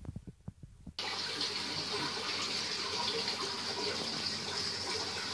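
A few soft knocks of plastic plant cups being handled, then about a second in a steady rushing of running water starts suddenly and goes on evenly.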